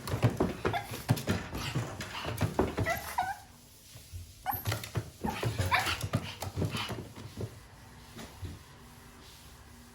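Japanese Chin puppy whining and yipping in two short bouts, mixed with quick knocks and scuffling, then going quiet for the last couple of seconds.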